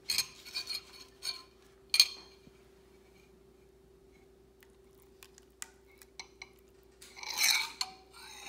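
A metal spoon clinking against a ceramic bowl of whisked eggs, with a sharp clink about two seconds in. Near the end the spoon scrapes along the bowl as the eggs are poured out.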